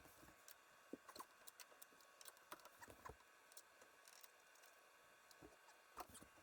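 Near silence: faint room tone with scattered light clicks and taps.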